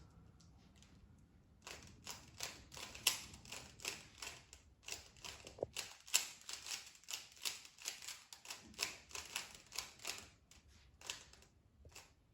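A 3x3 Rubik's Cube being turned fast by hand: rapid plastic clicking of the layers, several turns a second. The clicking picks up about two seconds in and stops shortly before the end as the solve finishes.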